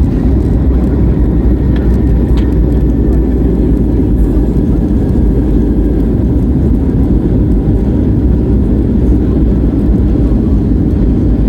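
Steady, loud rumble of a Boeing 737-800 heard from inside the cabin: engine and airframe noise as the airliner moves on or near the runway at landing.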